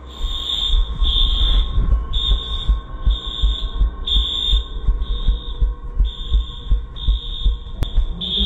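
Building fire alarm sounding a high-pitched beep about once a second, over heavy low thumps from running footsteps and a jostled handheld camera.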